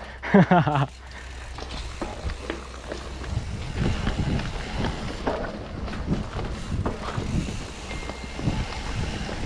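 Mountain bike riding a dirt forest trail: tyres rolling over packed dirt and dry leaves, with a steady stream of small rattles and knocks from the bike as it goes over bumps.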